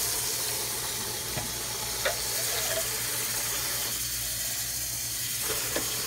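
Kitchen tap running a thin stream into a plastic tub of water in a stainless steel sink, a steady splashing hiss, with a few light knocks.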